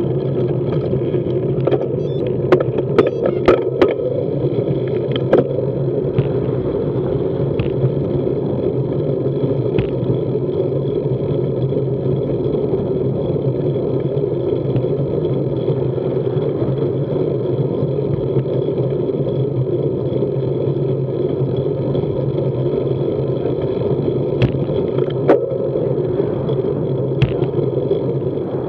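Steady rushing rumble of wind and road noise on a bicycle-mounted camera while riding at low speed. A few sharp clicks or knocks come in a cluster about two to five seconds in, and again near the end.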